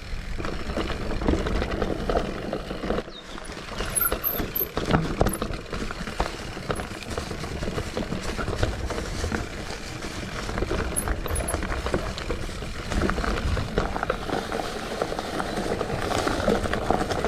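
Mountain bike being ridden down a dirt forest trail: a continuous rumble of tyres over the ground with frequent knocks and rattles from the bike over bumps and roots.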